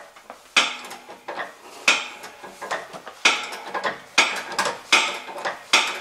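Motorcycle lift table being pumped up by hand with its lever, clanking metal on metal with each stroke, about one sharp ringing clank a second.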